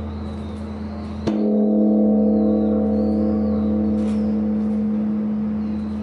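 Large Korean Buddhist temple bell (beomjong) struck once by a swinging wooden log about a second in, then ringing on with a deep, steady hum of several sustained tones. Before the strike, the previous toll's ring is still fading.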